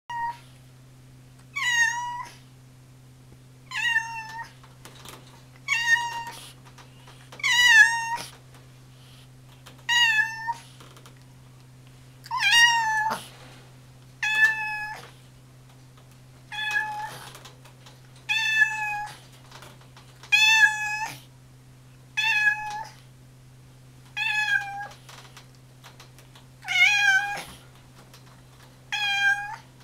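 Orange tabby cat meowing over and over, one short meow about every two seconds.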